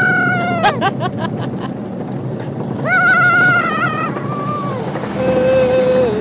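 Gravity luge kart rolling down an asphalt track: a steady rumble of the wheels on the road, with wind on the microphone and a few knocks and rattles about a second in. Over it come long, high-pitched, drawn-out vocal calls: one at the start, another about three seconds in, and a lower, steadier held tone near the end.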